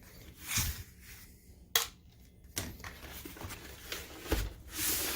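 Screws being taken out of a projector's plastic back cover by hand: a few sharp clicks and knocks, with short stretches of scraping from the tool and case.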